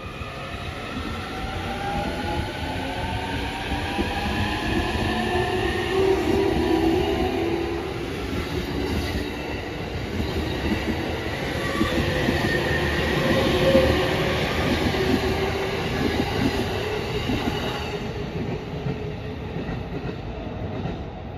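E231-1000 series electric commuter train pulling away, its VVVF inverter-driven traction motors whining in several stacked tones that rise in pitch as it gathers speed. Wheels then clack steadily over the rail joints as the cars run past, and the sound fades near the end.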